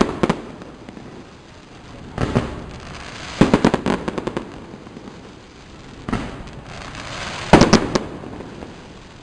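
Fireworks going off: single sharp bangs every second or two, with a quick run of crackling pops about three and a half seconds in and another close group of bangs near the end.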